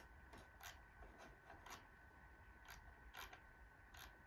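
Faint computer mouse clicks, several of them at irregular intervals, over a faint steady high-pitched tone.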